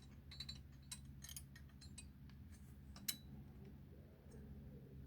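Faint, irregular small metallic clicks and taps of a bolt and hand tool being worked into a mounting bracket, the sharpest about three seconds in, over a low steady hum.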